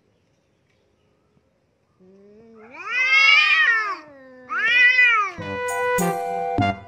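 A cat yowls twice during a face-off with another cat: a long drawn-out yowl that rises and falls, then a shorter one, the warning cry of cats squaring up to fight. Piano-like background music starts near the end.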